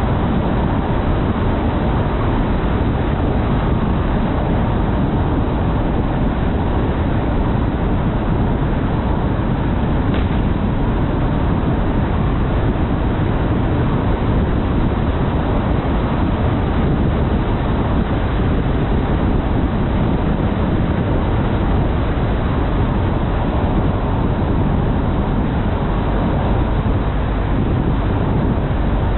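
Car driving at speed: steady road noise.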